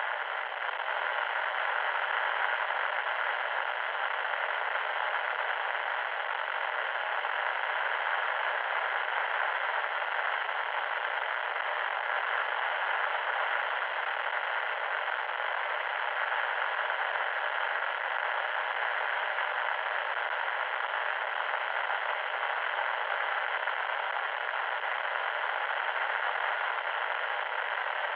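Loud, steady static hiss, thin and without any bass.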